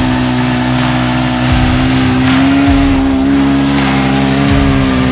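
Powered ice auger running at speed, drilling a hole through lake ice, its motor holding a steady pitch with slight dips under load.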